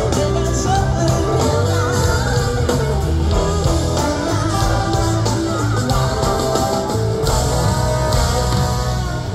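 Live blues-rock band playing at full volume, with wavering electric guitar lines and some singing over steady bass and drums, as heard from the audience.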